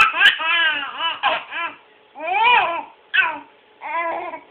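Baby laughing: a quick run of short high-pitched laughs, then three longer separate laughs with pauses between.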